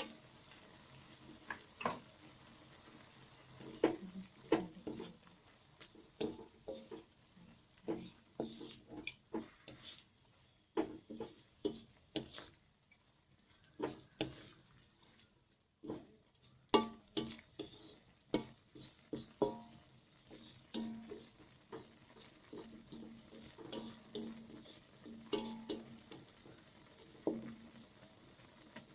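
Spatula stirring food in a frying pan: irregular scrapes and knocks of the utensil against the pan, with sizzling underneath.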